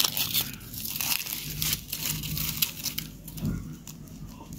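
Irregular dry crinkling and crunching, a run of many small crackles.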